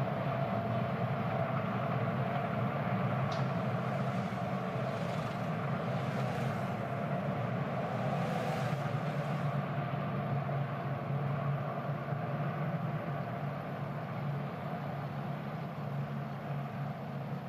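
Several IndyCar race cars running together on an oval, a steady drone of engines.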